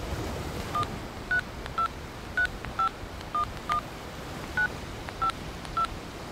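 Touch-tone telephone keypad dialling a number: ten short two-note beeps at an uneven pace, over a steady hiss.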